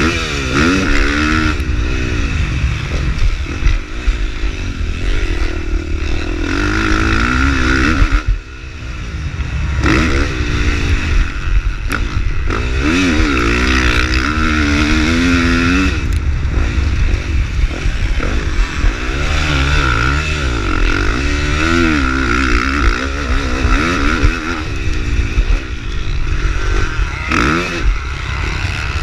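450cc four-stroke motocross bike engine under race throttle, its revs climbing and falling again and again, with a sudden brief drop in level about eight seconds in. A steady low rumble runs underneath.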